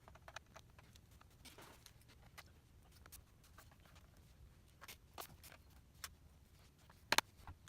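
Faint, scattered light clicks and ticks of a small screwdriver and screws on a MacBook Pro's bottom case as the back-cover screws are put back in, with a sharper double click about seven seconds in.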